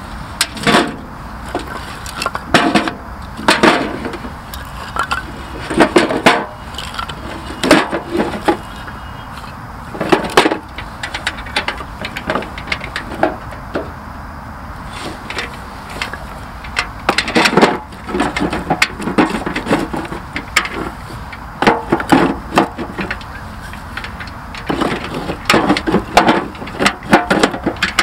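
Split firewood logs being loaded one at a time into a galvanized steel coal-briquette bin: sharp wooden knocks and clatter of logs hitting the metal bin and each other, in irregular clusters with short pauses between.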